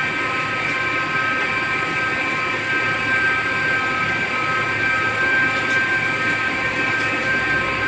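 CNC lathe spindle running while a turret tool turns an extruded metal rod blank for a car AC fitting. It is a steady machine whine with several high tones over a rushing hiss, held evenly through the cut, which is the finishing cut.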